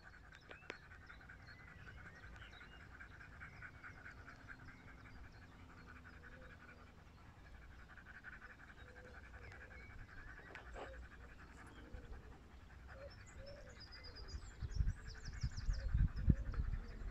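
A dog panting rapidly and steadily while resting, hot and out of breath after the walk; the panting eases off about two-thirds of the way through. A few low rumbling bumps come near the end.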